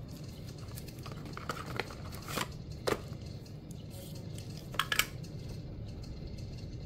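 Cardboard packaging and a plastic charger being handled during an unboxing: light rustles and scrapes with a few sharp clicks and taps, the loudest near three seconds and a quick cluster about five seconds in.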